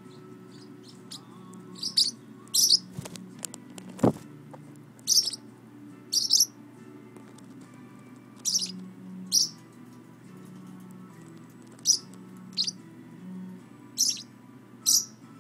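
Parrotlet calling with short, sharp high chirps, about a dozen spaced roughly a second apart. A single sharp knock comes about four seconds in.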